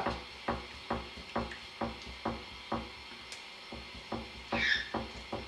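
Knife sawing back and forth through roast chicken breast, about two short scraping strokes a second.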